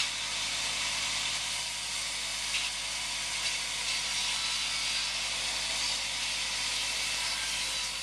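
Bavaria SL 130i mobile band sawmill running, its engine and band blade making a steady hiss over an even hum.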